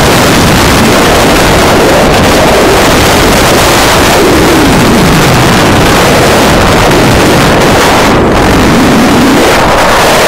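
Loud, steady wind noise buffeting the microphone of a camera carried by a skier moving downhill.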